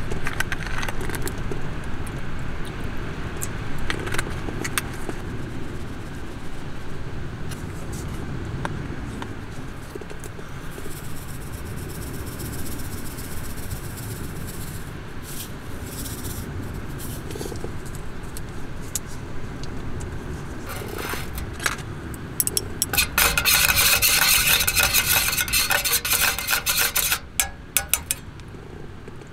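Metal spoon stirring and scraping quickly inside a small stainless steel cup, a dense run of clinks near the end. Earlier, a soft hiss of seasoning being shaken into the cup. A steady low rumble runs underneath.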